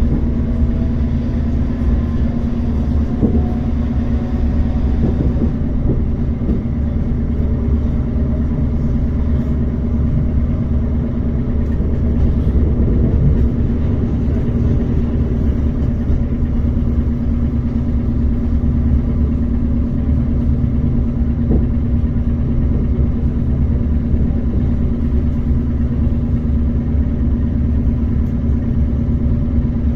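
ER9T electric multiple unit running, heard from inside the carriage: a steady low rumble of wheels and running gear with a constant electrical hum.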